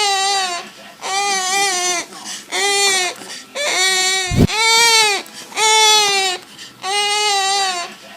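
A bird calling in a baby-like crying wail, about seven drawn-out cries in a row, roughly one a second, each arching slightly in pitch.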